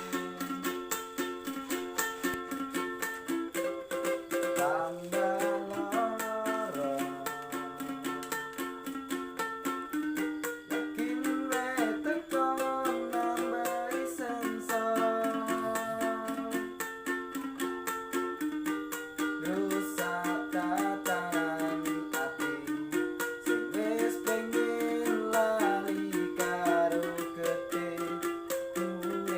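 A busker singing a melody over a fast, steady strum on a small string instrument.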